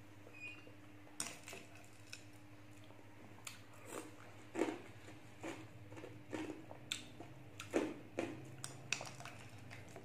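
Close-up chewing and crunching of juicy trasak srov melon-cucumber chunks in sweetened milk, a dozen or so irregular crisp crunches, with a metal spoon clinking against a glass bowl.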